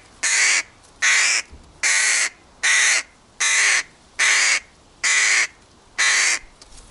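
Hooded crow fledgling calling over and over, a loud harsh caw about every 0.8 seconds, each call about half a second long and evenly spaced.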